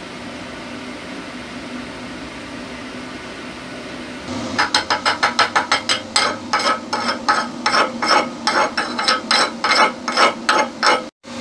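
Slag being knocked off a fresh 7018 stick weld on steel plate: rapid metallic strikes, about three to four a second, starting about four and a half seconds in. Before them a steady low hum.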